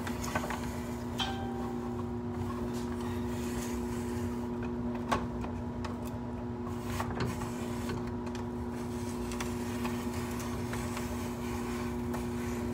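Steady two-tone mechanical hum of a running fan or appliance, with a few faint scattered clicks and taps.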